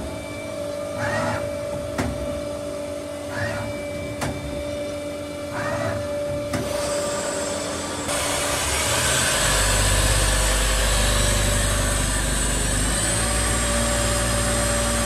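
Colchester Tornado T8M CNC lathe running under power. At first there is a steady tone with a short rising sound about every two seconds and a few clicks; eight to nine seconds in, a much louder, deeper whirring starts up and runs on.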